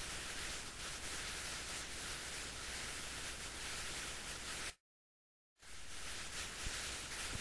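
Steady hiss of background recording noise, strongest in the upper range, with no other sound in it. About five seconds in it drops out to complete silence for just under a second, then the hiss returns.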